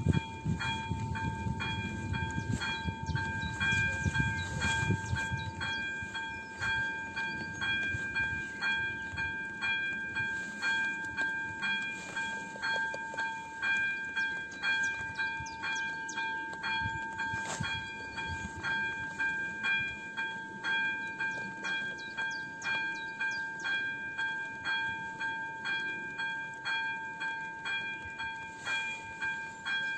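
AŽD electronic level-crossing bell (type 02) ringing in warning: a steady ringing tone with evenly repeating strokes. A low rumble underneath fades out over the first few seconds.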